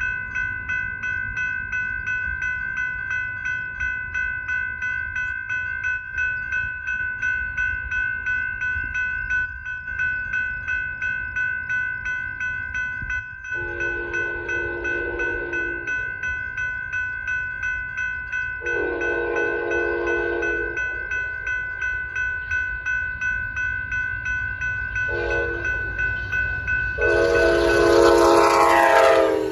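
Railroad crossing bell rings steadily throughout. Over it, the horn of an approaching Amtrak San Joaquins train led by NPCU cab car 90278 blows two long blasts, a short one and a final long one: the standard warning for a grade crossing. Near the end the train reaches the crossing with a loud rush of rumbling wheels.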